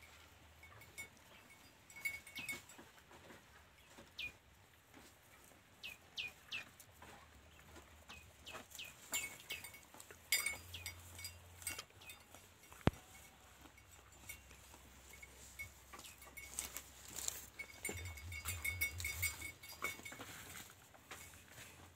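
Bull eating fresh-cut grass, pulling and chewing the stalks with irregular crackling and rustling.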